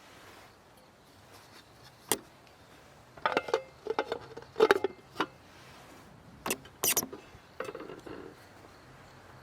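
Metal camping cookware being handled: a string of sharp clinks and knocks, the loudest a few seconds in and clustered near the middle, with brief ringing after some strikes.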